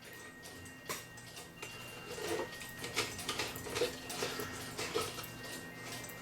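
Small irregular clicks and taps of tiny decorative nuts being handled and fitted onto a clock case, with a sharper click about a second in, over a faint steady hum.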